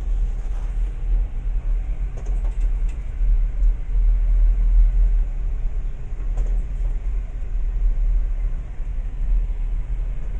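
Patrol boat's engines running steadily, a deep, even rumble heard inside the wheelhouse while the boat is under way.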